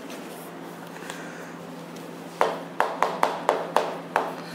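Chalk striking a chalkboard as letters are written: a quick run of about seven sharp taps in under two seconds, starting a little past halfway.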